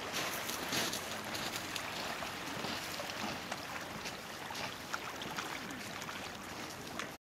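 Small waves washing over a pebble beach: a steady rushing noise with many faint clicks, cutting off suddenly near the end.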